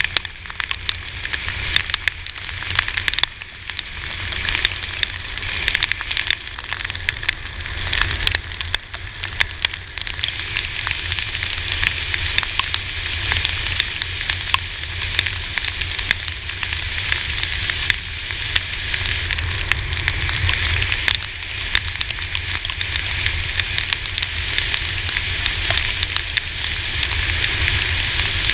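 Rain striking a GoPro Hero4 camera on a moving scooter, heard as dense, irregular ticks over a steady rush of wind and spray from the wet road.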